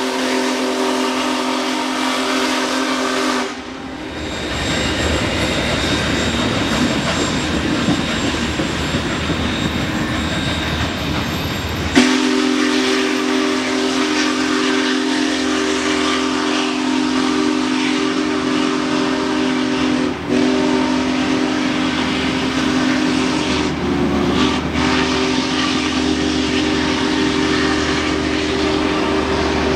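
Union Pacific 4014 Big Boy's steam whistle blowing a steady chord, which cuts off about three seconds in. The rumble and rattle of the passing passenger train fills the gap until the whistle sounds again about twelve seconds in and holds, with a brief break about twenty seconds in.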